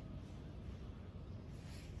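Faint steady low background noise (room tone), with no distinct event.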